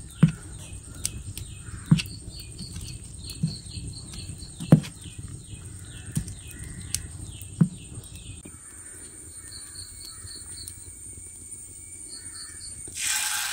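Thick dosa batter being stirred with a spoon in a metal bowl, the spoon knocking against the bowl a handful of times, while a bird calls over and over with short falling chirps, about three a second. Just before the end a hot pan starts to sizzle.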